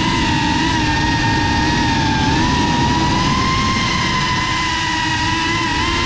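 FPV quadcopter's electric motors and propellers whining at a steady throttle, the pitch drifting only slightly.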